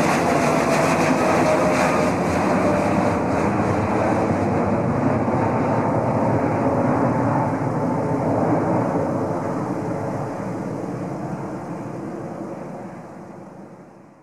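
Boeing 787 Dreamliner climbing out overhead: a steady jet engine roar with a faint whine that slides down in pitch over the first couple of seconds. The roar slowly recedes and falls away quickly near the end.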